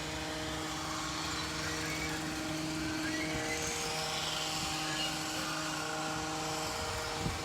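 A steady engine drone holding one pitch, with some of its tones fading out near the end.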